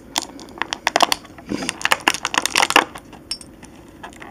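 Clear plastic toy packaging being handled and pried open: a quick, irregular run of clicks and crackles through the first three seconds, thinning out near the end.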